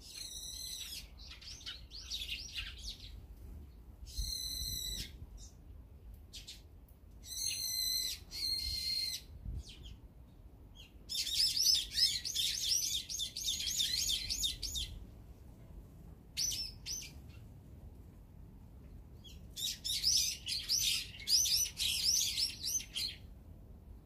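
Small wild songbirds at a feeder calling: three short, harsh, buzzy calls a few seconds apart, then two bursts of rapid chattering, each lasting three to four seconds.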